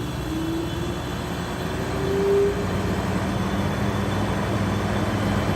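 GE 5010 BTU window air conditioner running with its fan on low and its compressor just started: a steady rush of air with a faint tone drifting up in pitch, then a steady low hum that settles in about two and a half seconds in.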